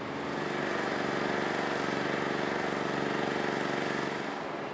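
An engine running at a steady pitch, growing louder about half a second in and dropping back near the end.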